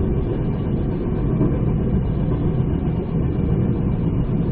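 Steady rumble of the Spirit of the Outback passenger train running along the track, heard from on board.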